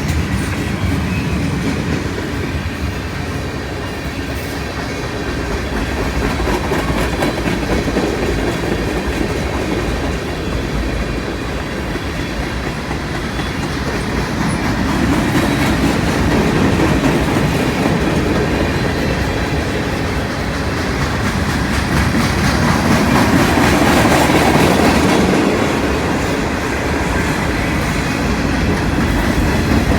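CN freight train's cars rolling past on the track, the wheels clicking steadily over the rail joints, the level swelling and easing as the cars go by.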